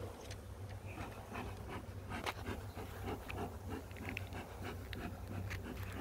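Honeybees buzzing in a steady hum over an open hive, with scattered light clicks and taps.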